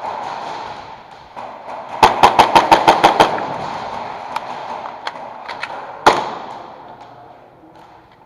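Airsoft gun firing a quick string of about nine shots, about seven a second, then a few scattered single shots and one sharp loud crack about six seconds in.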